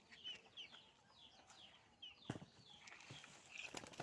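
Faint bird chirping: a short, high falling note repeated about three times a second, which stops about halfway through. Then a few sharp knocks.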